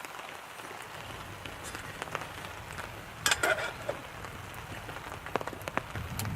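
Wood fire crackling in a fire pit: a steady hiss with scattered sharp pops, and a brief louder clatter a little over three seconds in.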